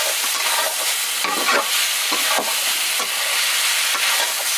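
Rooster meat frying and sizzling steadily in a black iron karahi over a wood fire, with a ladle stirring and scraping the meat against the pan now and then.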